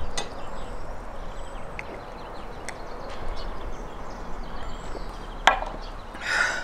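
Outdoor ambience with faint high bird chirps, a single sharp knock about five and a half seconds in, and a short rustling clatter near the end as a hand picks green plums from a bowl.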